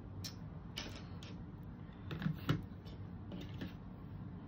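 Light taps and clicks of a wooden cutout and cardboard being handled and set down on a plastic cutting mat: about ten short knocks at uneven intervals, the loudest two about two seconds in.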